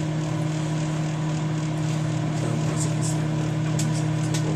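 Microwave oven running with a steady hum while it heats a whole raw egg that has not yet burst. A few faint ticks come near the end.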